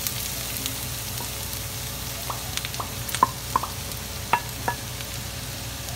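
Diced boiled pork lung tipped into a hot stainless-steel wok of sautéed onion, garlic and ginger, sizzling in the oil. In the middle seconds comes a string of sharp taps and clinks as a wooden spoon scrapes the last pieces from the bowl into the pan.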